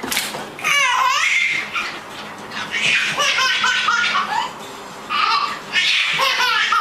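Baby laughing in repeated bursts, with short pauses in between.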